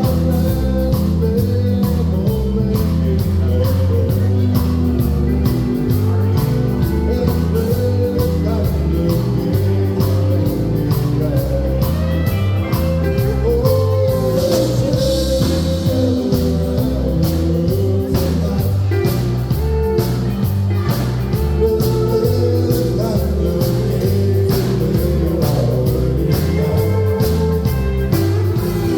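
Live country band playing, with a lead vocal over a bass line that steps from note to note and a steady drum beat.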